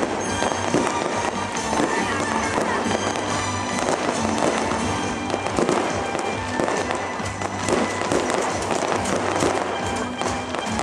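Small aerial fireworks and fountains popping and crackling, many quick reports throughout, over steady music.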